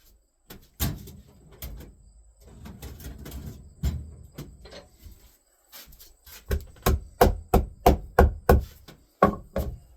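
Hammer striking on a wooden furniture dolly: a few separate blows with some handling noise between them, then a quick run of about ten taps, roughly three a second, driving home staples that the stapler failed to set flush at the end of the frame.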